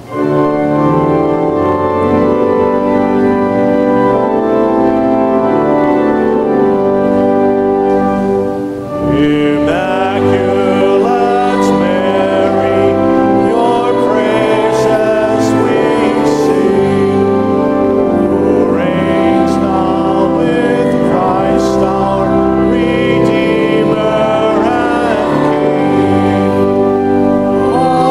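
Church organ playing held chords of a hymn; about nine seconds in, singers join and the hymn goes on with organ and voices together.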